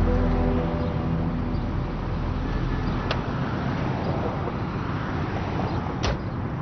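Street traffic noise, with a car door clicking open about three seconds in and shutting with a sharp knock near the end.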